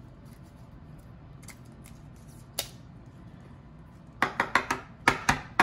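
A sleeved trading card being slid into a rigid plastic top loader: one sharp plastic click about two and a half seconds in, then a quick run of sharp plastic clicks and taps near the end.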